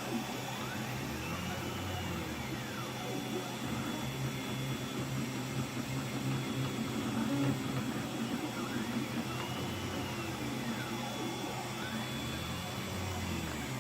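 Anet A8 3D printer running a print: its stepper motors whine in repeated glides that rise and fall in pitch as the head speeds up and slows down, over a steady low hum. The print is in its last stretch, at about 99%.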